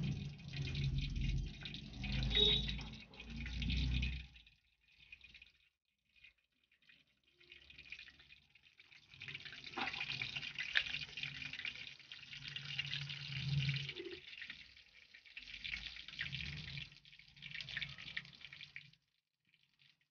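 Oil sizzling and crackling in a frying pan on a gas stove as food cooks, with a low hum underneath. It stops for a few seconds about four seconds in and again near the end.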